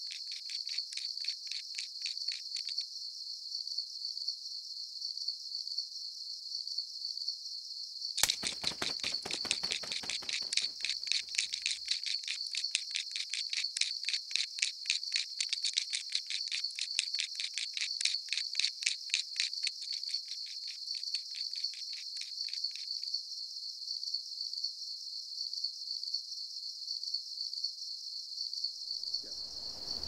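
Insects chirping in a fast, steady pulse, with a denser, louder layer of chirping that starts abruptly about eight seconds in and drops away around twenty-three seconds.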